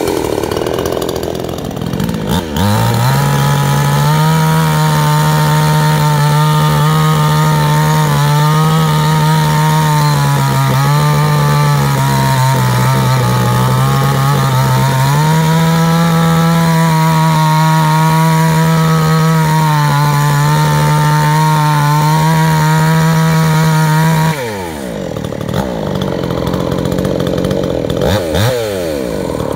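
Tokai two-stroke chainsaw idling, then revved up about two and a half seconds in and held at high revs for some twenty seconds while cutting wood, its pitch sagging and recovering under load. It then drops back to idle, with a brief blip of throttle near the end.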